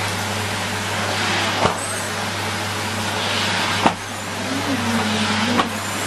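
Numatic Henry cylinder vacuum cleaner running steadily as its floor tool is pushed back and forth over carpet. The suction hiss swells and eases with the strokes, over a constant hum, and there are three sharp clicks.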